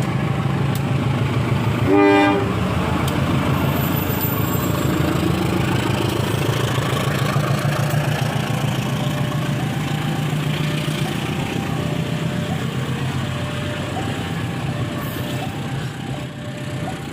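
CC201 diesel-electric locomotive's diesel engine running with a steady low drone, with one short blast of its horn about two seconds in.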